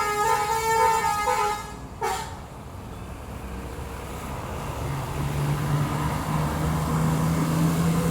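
Bus telolet musical horn playing a stepping multi-note tune that ends about a second and a half in, followed by a sharp click. A low steady drone comes in about five seconds in.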